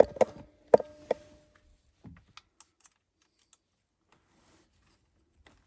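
Sharp clicks and taps of a socket tool working the screws out of a plastic steering-column shroud. There are four loud clicks in about the first second, some with a brief ring, then fainter scattered clicks that die away.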